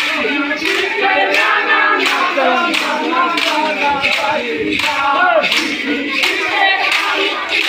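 Crowd of men chanting and calling out together over a steady beat of sharp strikes, about two a second.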